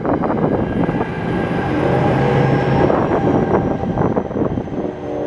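NJ Transit ALP-45A locomotive pushing a departing train past under diesel power, its engine running loud over the clatter of wheels on rail. A faint high whine rises slowly in pitch as the train accelerates.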